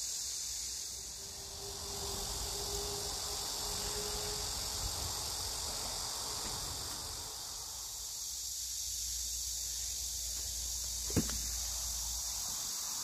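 Steady, high-pitched chorus of insects, with one sharp knock about eleven seconds in.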